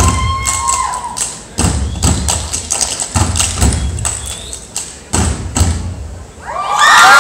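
A high-school step team stepping: heavy foot stomps and hand claps in a quick, uneven rhythm, with a few short vocal calls near the start. In the last moment the crowd breaks into loud cheering and screams.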